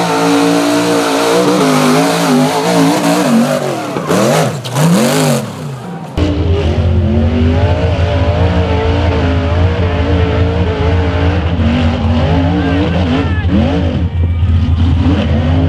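Rock bouncer buggy engine revving hard, its pitch sweeping up and down again and again as the throttle is blipped and held.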